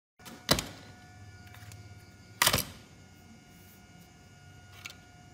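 Circuit boards being handled and set down on a work mat: a sharp knock about half a second in, a louder clatter about two and a half seconds in, and a light tick near the end. A faint steady electrical hum with a thin whine sits underneath.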